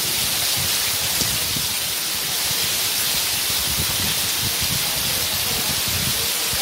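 Heavy rain pouring down steadily, a dense even hiss with an uneven low rumble underneath.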